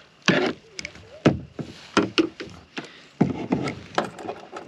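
Irregular knocks and taps of fishing tackle being handled in a kayak, about a dozen sharp strikes at uneven intervals.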